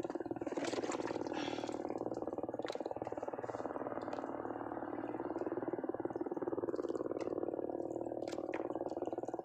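Small petrol engine running steadily with a fast even pulse, with a few light clicks and knocks from handling fishing tackle over it.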